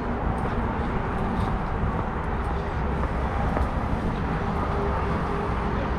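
Steady outdoor background noise, mostly a low rumble, with a few faint clicks.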